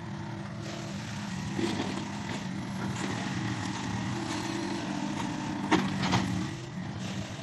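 Mini excavator's Kubota diesel engine running steadily, with a few sharp knocks, the loudest two close together near the end.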